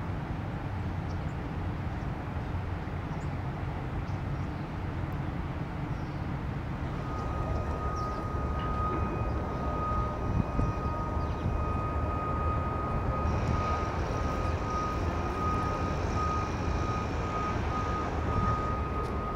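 Outdoor city ambience: a steady low rumble of distant engines. About a third of the way in, a thin steady whine joins it, and a higher hiss is added about two-thirds of the way through.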